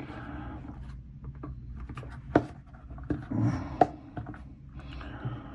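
Hands handling small plastic scale-model kit parts: light scratchy rubbing with a couple of sharp little clicks, the loudest about two and a half seconds in.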